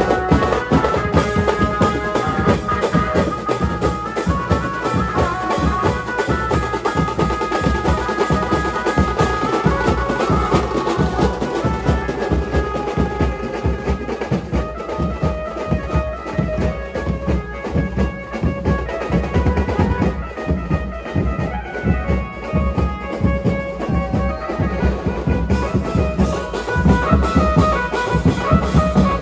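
Loud music with a fast, heavy drum beat and a melody line running over it.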